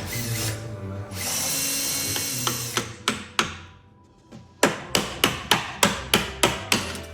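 Hammer blows on wood in the piano case: a few scattered knocks, then a steady run of about nine sharp strikes at roughly four a second.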